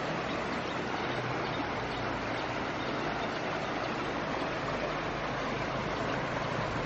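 Steady rushing noise of flowing water, even and unbroken.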